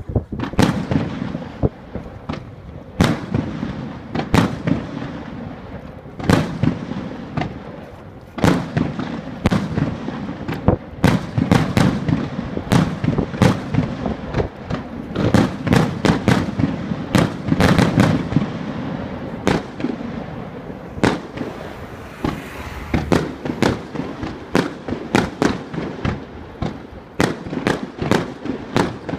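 Aerial fireworks going off in a rapid finale barrage: a dense, irregular run of sharp bangs, sometimes several a second, with rumbling echoes between them.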